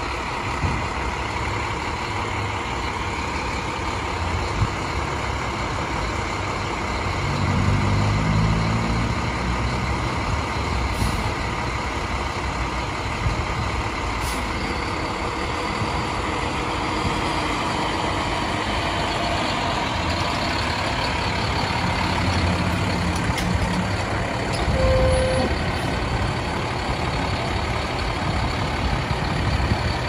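A fire truck's diesel engine running as the truck pulls out of its garage. The engine swells in revs about a quarter of the way in and again near the end, and there is one short beep near the end.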